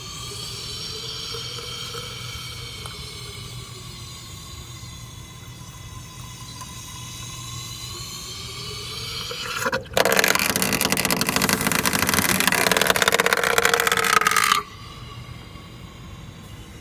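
Overheated BMW E30's straight-six idling with no radiator or coolant, a whine in it slowly rising and falling in pitch. About ten seconds in, a loud hissing crackle of water boiling off the overheated engine starts abruptly, runs for about five seconds and cuts off suddenly, leaving the idle.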